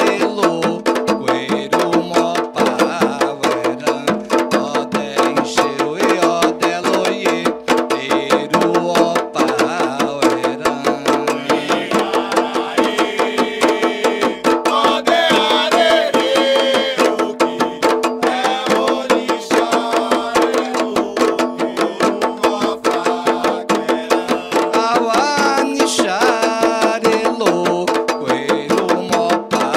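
Candomblé Ketu sacred music for Oxóssi: hand drums keep up a fast, dense rhythm, with a voice singing through the middle stretch and again near the end.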